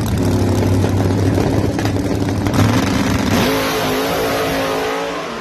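Drag racing car's engine at full throttle as the car launches down the strip, very loud. About three and a half seconds in the pitch rises, and it fades near the end as the car pulls away.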